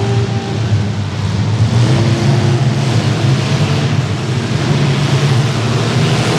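Several compact demolition derby cars' engines running and revving together, a dense, loud, continuous engine noise.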